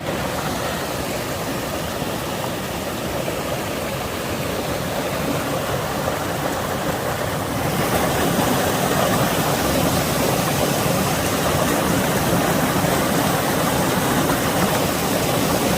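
Steady rush of falling water from a mountain stream or waterfall, growing louder about halfway through.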